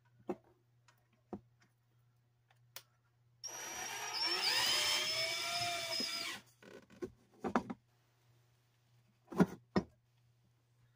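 Cordless drill driving a screw through a light fixture into the ceiling, its motor running for about three seconds with a whine that rises in pitch as it spins. Scattered clicks come before it, and a few sharp knocks follow near the end.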